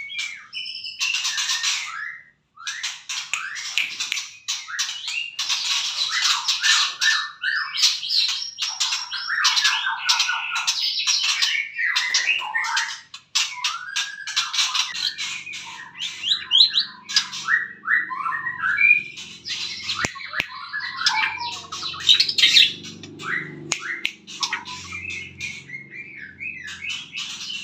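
White-rumped shama (murai batu) singing a long, varied song of rapid, changing phrases, with short pauses about two and thirteen seconds in.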